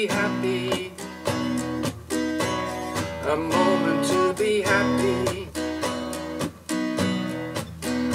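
Steel-string acoustic guitar played solo: a steady run of picked and strummed chords, each ringing into the next.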